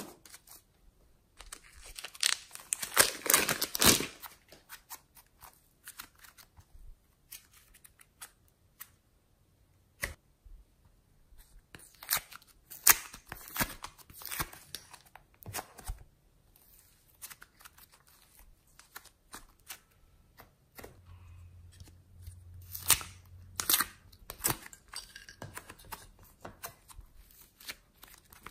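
Hands squeezing and kneading soft slime: sticky clicks and crackles as it is pressed and pulled apart, in several busy spells with quieter pauses between.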